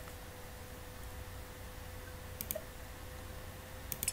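Computer mouse clicking: a quick pair of clicks about two and a half seconds in and a small cluster near the end, over a faint steady hum of room noise.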